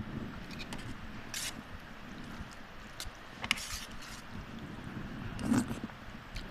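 Eating Maggi noodles and soup: chewing with several short, sharp mouth and slurping sounds, the loudest about five and a half seconds in.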